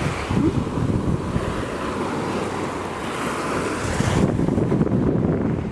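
Surf washing on a beach, with wind buffeting the camera microphone in a heavy, uneven low rumble. The higher hiss of the water drops away about four seconds in.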